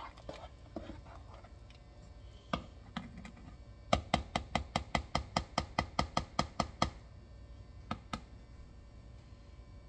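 A spatula stirring strawberries and sugar in a metal saucepan, knocking against the pot: a few single knocks, then a quick even run of about twenty knocks over some three seconds, then two more.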